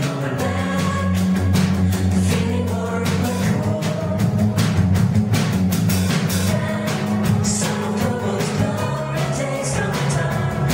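Live band playing a pop song: a woman singing over bass guitar, electric guitar and drums with a steady beat.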